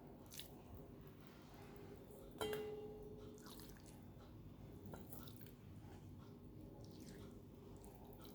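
Faint food-preparation handling sounds, with one sharp clink about two and a half seconds in that rings briefly, like a utensil knocking a bowl.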